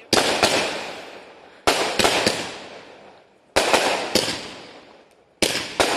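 Aerial fireworks bursting overhead four times, about every two seconds. Each is a sharp bang of two or three quick cracks followed by a crackling hiss that fades before the next shot.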